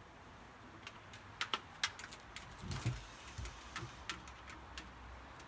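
Irregular light clicks and taps of a screwdriver working on the metal frame of a sliding screen door while its adjustable top piece is tightened.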